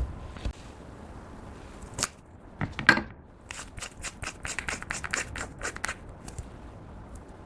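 Clear slime being handled and mixed, giving a few sharp sticky pops and then a quick run of crackling clicks for a couple of seconds.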